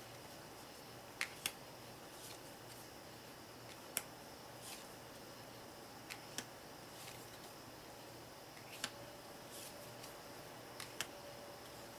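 Jumbo playing cards handled one at a time, with a sharp, brief card snap or click every second or so, about ten in all, at irregular spacing, over a faint steady room hum.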